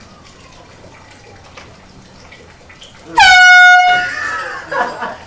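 Handheld air horn sounding one loud blast about three seconds in, a steady single tone held for about a second, which rings on briefly in the room after it stops.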